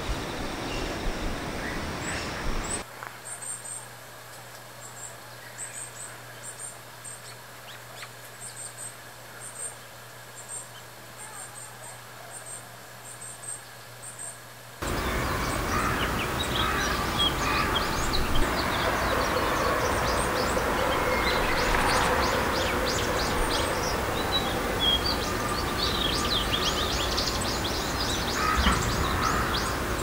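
Varied tit calling, thin very high notes in short clusters. About halfway through, the sound changes to Japanese tit calling, many quick high notes over a louder noisy background.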